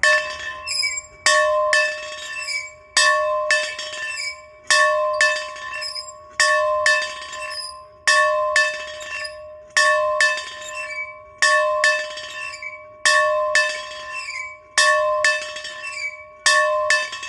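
A bell rung over and over in an even rhythm, about two strikes a second, each stroke ringing on into the next.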